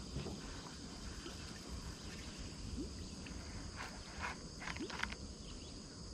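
Faint outdoor background with a steady high insect drone and a few soft rising chirps. Light clicks and taps from handling a baitcasting rod and reel come about four seconds in, as a cast is made.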